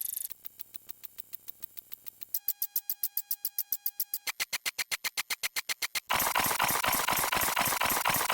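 Rapid string of short edited sound effects repeating at an even, quickening pace, at first as sparse clicks, then as louder pulses over a few held tones. About six seconds in it turns into a loud, dense jumble of overlapping sounds.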